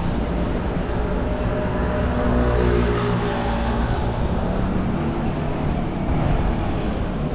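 A train running, with a steady low rumble and a faint motor whine that is strongest in the middle.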